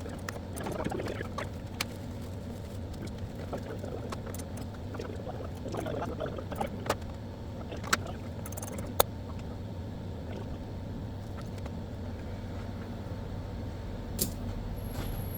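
Sparse sharp clicks and metal taps of a wrench working the hood's 10 mm bolts loose, over a steady low hum.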